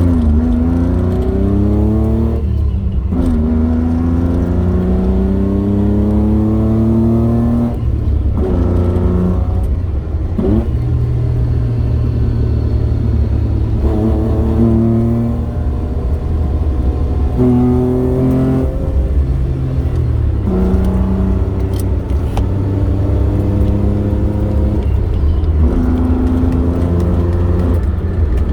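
Honda Today kei car engine accelerating through the gears: the engine pitch climbs for a few seconds, then drops suddenly at each gear change, several times over, above a steady low drone.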